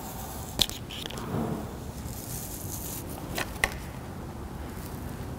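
Quiet handling sounds of adhesive clear paint-protection film being worked onto a car body panel with a small plastic squeegee: a sharp tick about half a second in, a brief faint hiss around two seconds, and two more ticks about three and a half seconds in.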